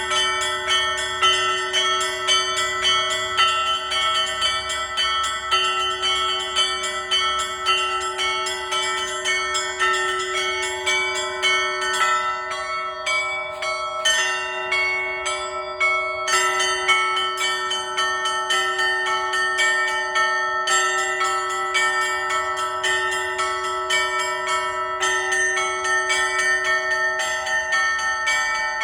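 Orthodox church bells rung together in a festal peal: quick, rhythmic patterns on the small bells over a deep bell struck about every two and a half seconds. The small bells drop back briefly partway through, then pick up again.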